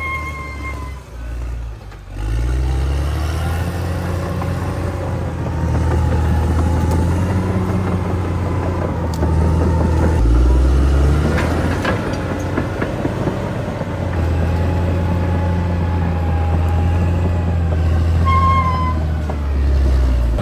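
Cat D6R XL bulldozer's diesel engine running under load, dropping off briefly about a second in, then pulling hard again with its pitch rising and falling as the machine works. A few metallic clanks come around the middle, and there is a short high squeak near the end.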